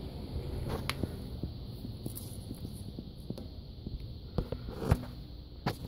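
Low steady hum with a few sharp clicks and knocks scattered through it, the loudest about five seconds in.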